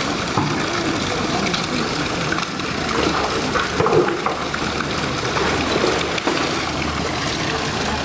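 Steady rush of running water in a polar bear enclosure's pool.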